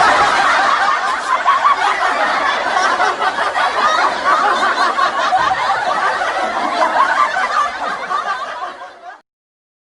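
Hearty laughter from many overlapping voices, continuous and loud. It fades out about nine seconds in.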